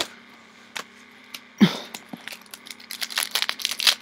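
Foil booster-pack wrapper crinkling and tearing as it is pulled open by hand, a few crackles at first, then a dense run of crinkling in the second half. A single sharp thump about one and a half seconds in.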